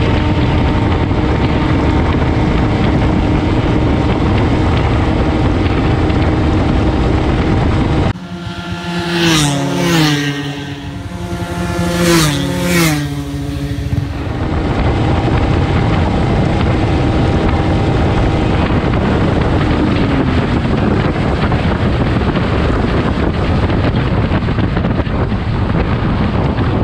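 Wind buffeting the microphone over a motorcycle engine held at a steady high speed, its note dropping near the middle of the second half as it eases off. Between about 8 and 14 seconds the wind noise stops and motorcycles are heard speeding past, each engine note dropping sharply in pitch as it goes by, four passes in two pairs.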